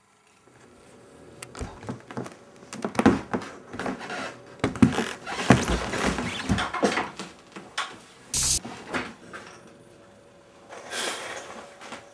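Irregular knocks, thumps and footsteps of someone moving about a small room, over a faint steady hum.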